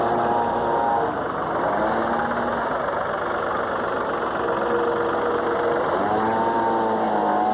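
A vehicle engine running steadily, its pitch dipping and recovering twice near the end.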